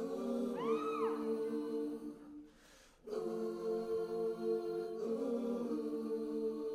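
Dance-solo recorded music near the end of a song: a long held chord of sustained voices, with a few sweeping pitch glides about half a second in. It drops out for about half a second between two and three seconds in, then the held chord comes back.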